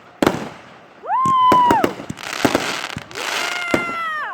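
Fireworks going off: several sharp bangs and a hissing crackle, with two whistling fireworks that each shriek at a steady pitch for about a second before dropping away, the second near the end.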